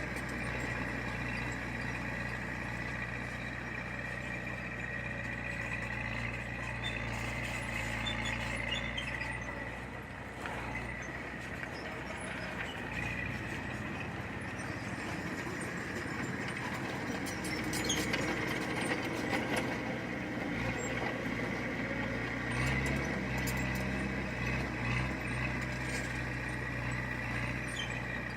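Heavy diesel earthmoving machine running steadily. Its engine eases off about ten seconds in and picks up again a little later, with scattered metallic clanks.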